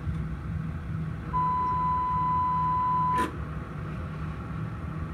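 A single steady electronic beep at one pitch, about two seconds long, starts about a second and a half in and ends with a click. Underneath it runs a low, steady engine hum.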